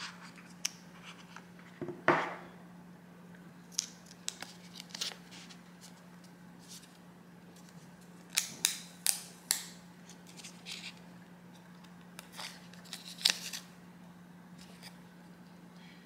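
Scattered short clicks and rustles of an AirPods Pro box and its contents being handled, in small clusters, over a steady low hum.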